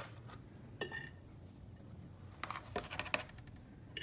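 A few light clicks and clinks of dishes and a fork being handled while grated cheese is served into a plastic cup: a small clink about a second in, then a quick run of clicks past the middle.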